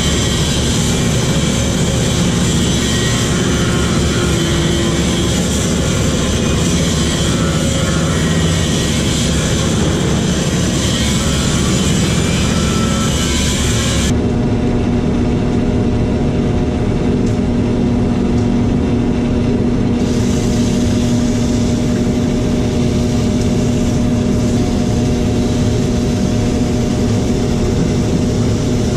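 Craftsman wood lathe running steadily, spinning a wooden handle blank while it is worked by hand, with a hiss from the wood being shaped or sanded. About halfway the hiss stops for several seconds, leaving the lathe's steady hum, then starts again.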